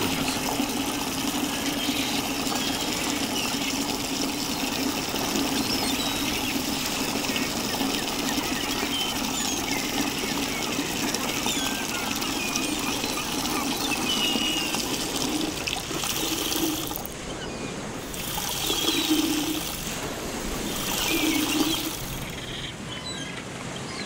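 A steady stream of liquid trickling and pouring, the comic sound of someone urinating, which breaks off and ends in three short spurts near the end.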